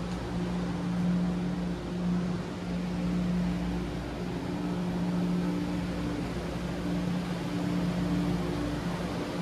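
Steady machinery hum in the engine room of an electric-propulsion ship, with a droning tone that swells and fades slightly over a low rumble and hiss.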